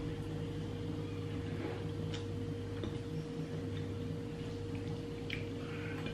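A steady electrical hum from a kitchen appliance, with a few faint clicks of someone eating with her fingers and chewing.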